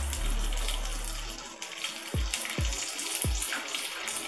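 Curry leaves and mustard seeds sizzling in hot oil in a frying pan, a steady hiss dotted with quick crackles: the tempering (tadka) being fried.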